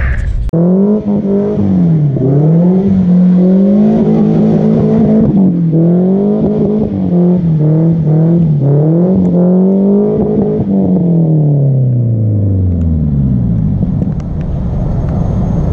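A drift car's engine revving up and down over and over as the car slides in circles on wet pavement. After about ten seconds the engine note drops steadily and fades.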